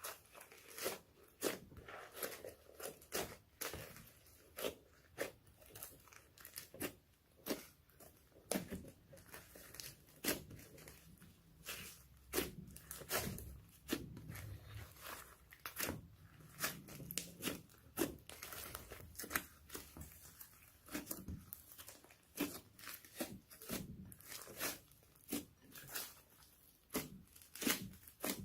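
Homemade slime being kneaded and mixed by hand, giving off a continuous run of irregular sticky pops and crackling clicks.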